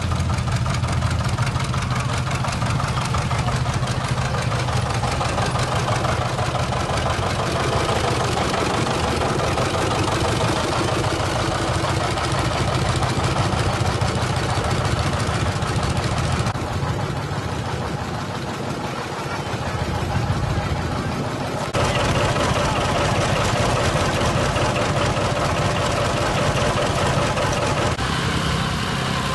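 Antique tractor engines running at low speed as tractors drive slowly past, mostly a John Deere two-cylinder row-crop tractor. The sound changes abruptly a few times, and a Massey Ferguson tractor engine takes over near the end.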